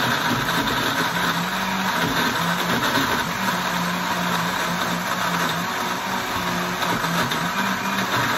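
Countertop blender motor running steadily, its hum wavering slightly in pitch as it churns a thick mix of sun-dried tomatoes and cashew nuts into a creamy pasta sauce.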